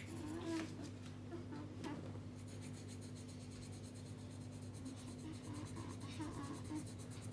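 Felt-tip pen scribbling on the paper of a colouring book, quick back-and-forth colouring strokes, faint.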